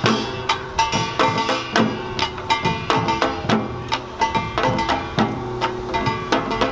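Korean samulnori percussion ensemble playing: small kkwaenggwari gongs clanging and ringing over janggu hourglass drums and buk barrel drums in a brisk, steady beat.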